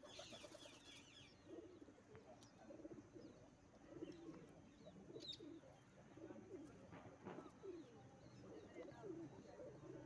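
Faint cooing of domestic pigeons: short, low calls repeating over and over.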